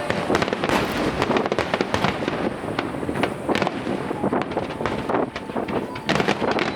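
Fireworks finale barrage: many aerial shells bursting in rapid succession, bangs overlapping with dense crackling.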